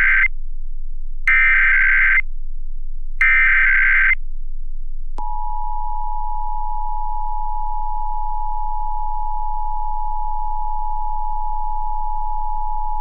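Emergency Alert System SAME header: the tail of the first burst, then two more bursts of buzzing data tones, each about a second long with a second of silence between, carrying the coded Required Monthly Test for Ohio. About five seconds in, the EAS two-tone attention signal (853 and 960 Hz) starts abruptly and holds steady.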